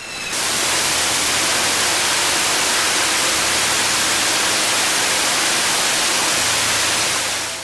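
Jet engine running at high power on a test stand: a steady, even roaring hiss that fades in at the start and fades out near the end.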